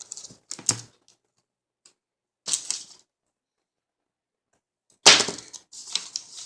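Sticky tape pulled off the roll and handled: three short crackling rips, the last and loudest about five seconds in.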